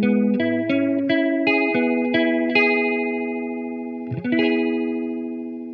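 Electric guitar played through a phaser pedal, a clone of the MXR Phase 90, giving a swirling, sweeping tone: a run of single picked notes, then a chord strummed about four seconds in that rings on and slowly fades.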